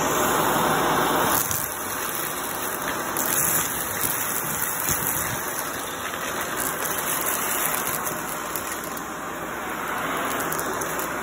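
Shark vacuum cleaner running with its nozzle on carpet, sucking up foam beads, hair and grit, with scattered small clicks of debris going up the wand. It is louder for the first second and a half, then settles a little lower.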